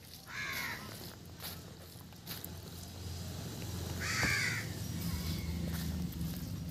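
A crow cawing twice, once about half a second in and again, louder, a little after the middle, with a few faint clicks in between.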